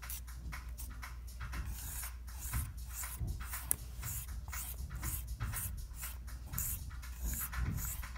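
Metal palette knife scraping and smearing thick metallic paint across a smooth surface, in repeated wet, sticky strokes.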